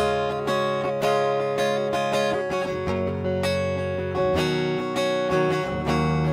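Schecter Hellraiser Extreme C-1 electric guitar played with a clean tone, its EMG 89 pickup split to single-coil: picked chords and notes ringing into one another, with a new chord every second or so.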